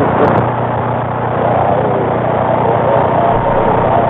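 Steady static hiss from an AM CB radio receiver on an open channel, with a steady low hum under it.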